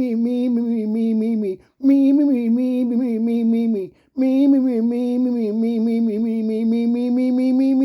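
One voice chanting a rapid string of repeated syllables on held pitches, in three long phrases with short breaks between them; the pitch climbs slowly through the last phrase.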